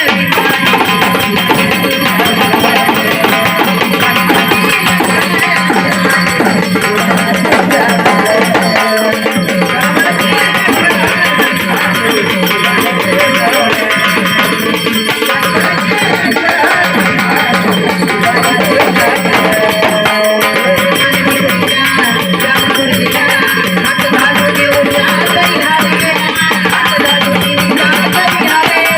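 Live Marathi folk music of a gavlan song in the jagran gondhal style, driven by steady hand-drum percussion.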